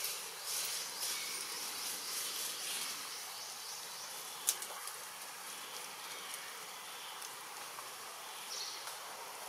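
Steady high insect buzzing, with a single sharp click about four and a half seconds in.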